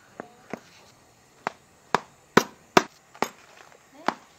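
Steel ladle pounding boiled tapioca in a metal pot: about eight sharp knocks, irregularly spaced at roughly two a second.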